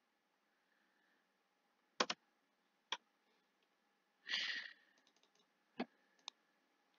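Faint, scattered clicks of a computer mouse and keyboard, about five in all and irregularly spaced, with a short rush of noise about four seconds in.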